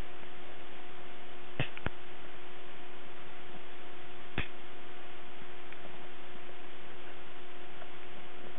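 Cardigan Welsh Corgi puppy hiccuping: short, sharp clicky hics, two in quick succession about one and a half seconds in and another a few seconds later. Underneath is a steady hiss and a low hum.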